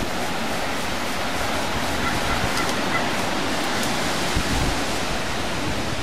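Strong wind rushing steadily through trees, a continuous surf-like noise with no breaks.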